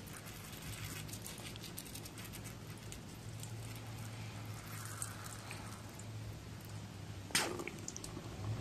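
A thin stream of water falling onto the moss of a potted plant, faint, with a steady low hum underneath. A short, louder burst of noise comes near the end.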